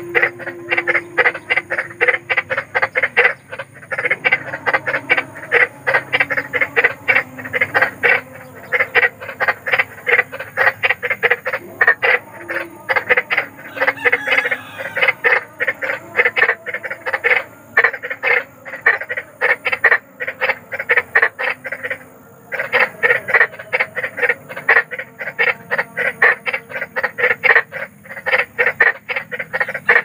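Frogs croaking in rapid pulsed trains, runs of several seconds broken by brief pauses.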